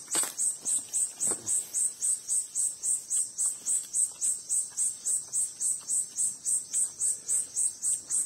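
A high-pitched insect chirping steadily, about four chirps a second, with a few faint knocks in the first second and a half.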